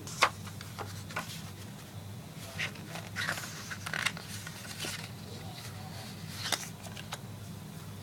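Packaging being handled and opened by hand: scattered clicks, scrapes and rustles, the sharpest click right at the start and a busier run of scraping in the middle, over a steady low hum.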